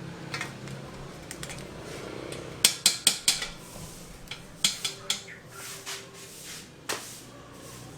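Objects being handled: scattered light clicks and clinks, with a few sharper knocks in small clusters.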